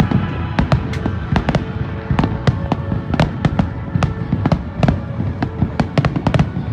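Aerial fireworks bursting in a rapid barrage: several sharp, loud bangs a second, irregularly spaced, over a continuous rumble.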